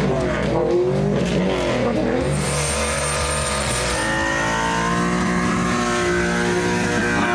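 Car engine revving up and down, then held at a steady high rev from about halfway through, as during a burnout.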